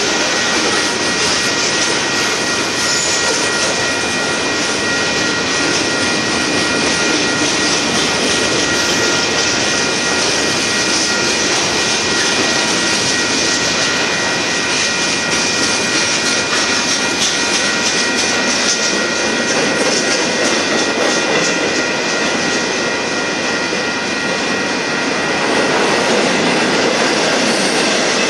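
A Union Pacific mixed freight train's cars rolling past close by, a loud steady rumble and rattle of wheels on rail. Several steady high-pitched tones run underneath it.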